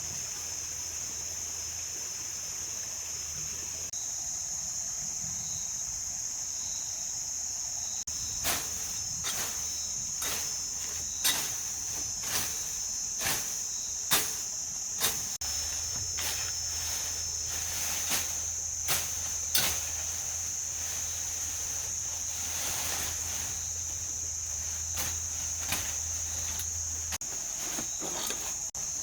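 Insects chirring in a steady high-pitched drone. From about eight seconds in, over a dozen sharp knocks come at irregular intervals, the loudest around the middle.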